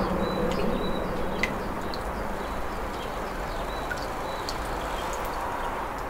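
A ball rolling around on a metal dome: a steady whirring rumble that eases over the first second, with scattered faint ticks.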